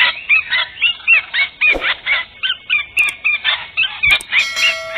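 White-rumped shamas (murai batu) calling in a fast run of short, harsh, arched notes, about four a second, with a couple of sharp clicks near the end.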